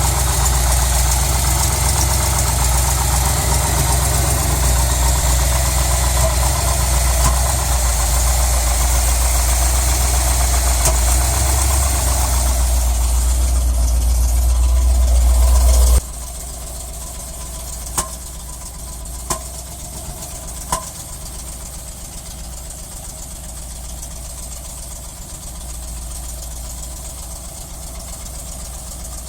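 A 350 engine idling unevenly with a misfire. It runs loud and steady for about the first half, then abruptly drops to a quieter idle, with three sharp clicks a little after that.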